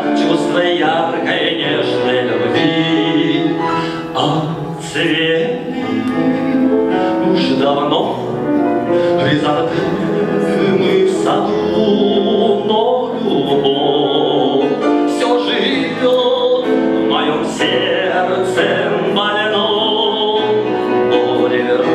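Grand piano played with a man singing along into a microphone, the voice with a slow vibrato.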